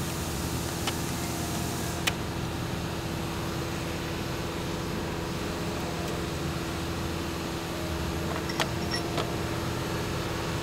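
A steady, low mechanical hum with a few light clicks of parts being handled, the loudest about two seconds in.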